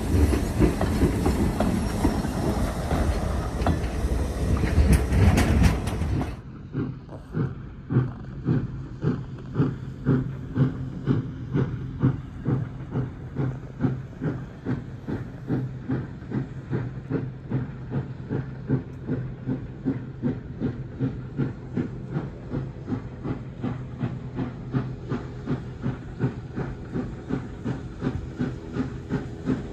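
Passenger coaches rolling close by, wheels clattering over the rail joints. After a cut about six seconds in, it gives way to the distant exhaust beat of ex-CPR 3716, a 1912 Montreal Locomotive Works 2-8-0 steam locomotive, chuffing steadily at about two beats a second as it works the train.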